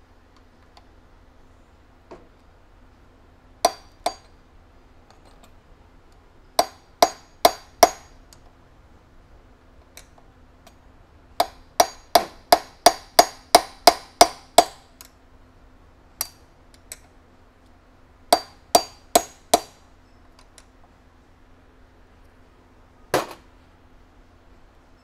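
Hammer blows knocking the Sur Ron's old stock headset cup out of the frame's head tube: sharp, ringing strikes in bursts, two, then four, then a rapid run of about ten, then four more and a single last blow near the end.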